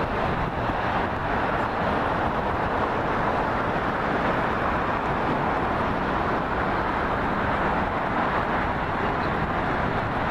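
Steady, even roar of motor traffic, a continuous wash of noise with no breaks or single passing vehicles standing out.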